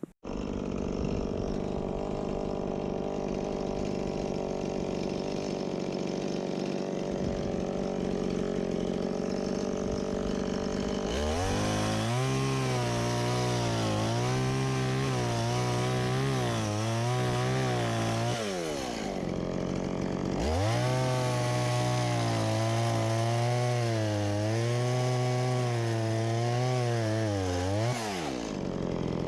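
Stihl MS170 chainsaw running steadily. It then opens up to full throttle for two long cuts, its pitch wavering under load, and falls back briefly between the cuts and again near the end.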